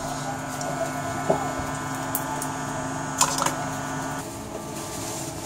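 Hot air rework station blower running with a steady motor whine, a few light clicks of handling over it; part of the whine drops away about four seconds in. The hot air is heating a phone circuit board from below.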